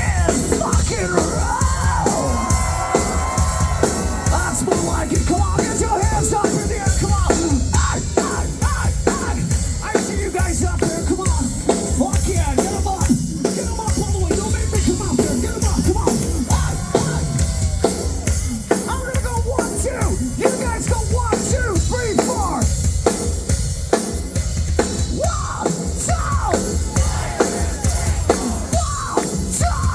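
Hard rock band playing loud, live: a pounding drum kit under distorted electric guitars, with a wavering vocal or lead line on top.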